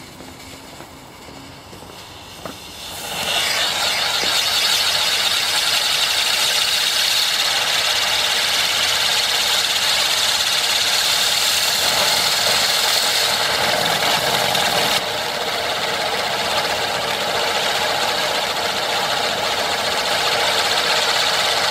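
A ground firework spraying a shower of sparks, giving a loud, steady rushing hiss that starts about three seconds in and holds without a break, dipping slightly in level about fifteen seconds in.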